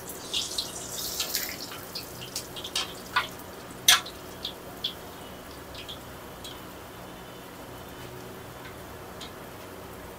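Dough rounds deep-frying in hot oil in a steel wok: the oil sizzles steadily, with sharp crackles and clicks crowded into the first few seconds, the loudest about four seconds in, thinning out to a quieter sizzle.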